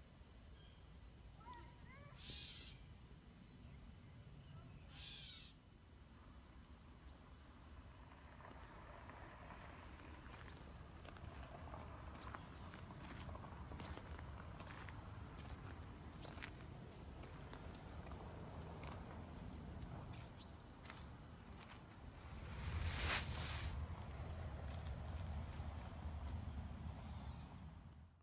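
A steady, high-pitched insect chorus, loudest in the first few seconds, with a few short bird calls. Then scattered crunching steps on a gravel road, and a single louder bump about 23 seconds in.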